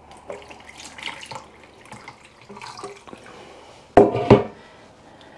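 Meat juices pouring from an air fryer basket into a plastic jug of gravy, with a spoon stirring and clinking. About four seconds in there is a loud double clunk.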